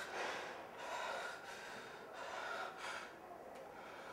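A man breathing hard, a breath about every half second to a second.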